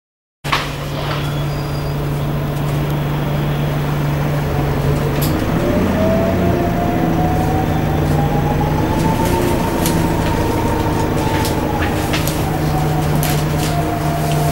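Alexander Dennis Enviro400 Hybrid bus heard from on board. A steady low hum runs at first. About five seconds in, the hybrid drive's electric whine rises in pitch as the bus gathers speed, then dips and levels off. Light interior rattles click throughout.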